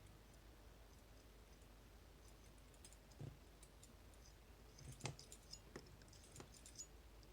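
Faint small clicks and ticks from a magnet-tipped pick working the magnetic sliders of a MIWA magnetic-slider cabinet lock, a single click a few seconds in, then a quick run of them near the end. This lock is picked by ear, listening for sliders binding, scraping and clacking.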